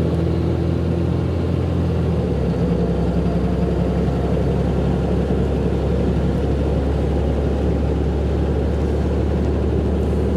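Ford 750 dump truck, loaded with topsoil, driving along a highway at about 40 mph with its engine running steadily. The engine note changes pitch about two seconds in, then holds steady.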